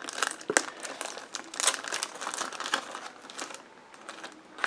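Crinkling and rustling of packaging as board game pieces are unpacked and handled: irregular crackles, a little quieter near the end.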